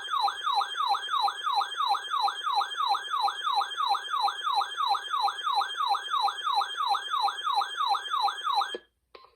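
Electronic siren in a fast yelp, a falling sweep repeated about three times a second, cutting off suddenly near the end.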